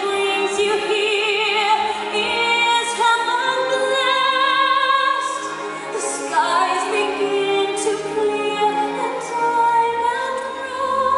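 A woman's voice singing a slow musical-theatre ballad with vibrato over instrumental accompaniment.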